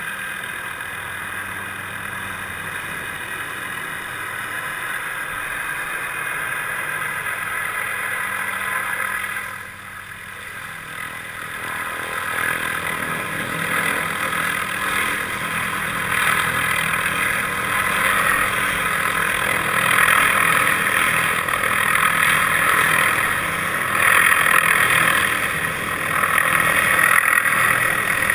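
Helicopter running overhead with a spacer cart slung beneath it on a long line: a steady engine and rotor sound that dips briefly about ten seconds in, then grows louder as it comes in close.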